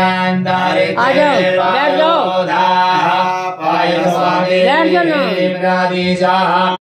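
Sanskrit mantras chanted in a melodic recitation over a steady held drone, during a Hindu puja. The chanting cuts off suddenly near the end.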